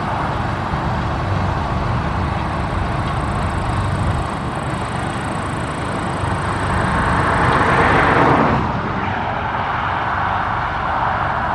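Claas Lexion 670 combine harvester running steadily, a dense mechanical rumble and rush. It swells louder about two-thirds of the way through, then drops back abruptly.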